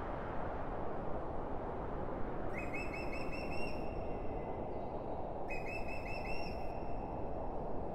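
Steady rushing noise, with a bird giving two trilled calls about three seconds apart, each a little over a second long.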